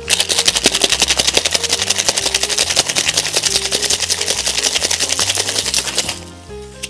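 Ice rattling in a cocktail shaker during a hard, quick shake of a mint cocktail: a rapid, even rhythm of hits that stops about six seconds in. Background music plays underneath.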